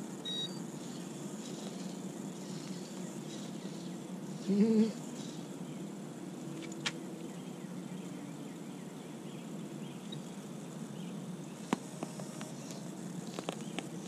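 Steady outdoor background noise with a few faint clicks, broken about four and a half seconds in by one short pitched call or hum lasting about half a second.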